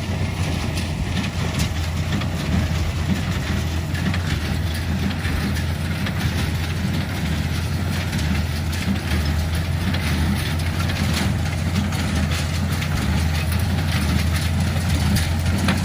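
Tractor engine running steadily while it drives a New Holland 69 square baler, the baler's moving parts making a continuous rattling clatter.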